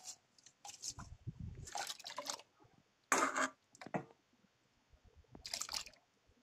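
Washed rice and lentils tipped from a steel bowl into a pot of water: a few short wet splashes and slides, the loudest about three seconds in.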